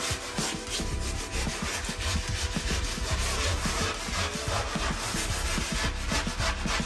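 Repeated rubbing and scraping strokes as a Kerdi waterproofing membrane sheet is worked flat into wet thinset.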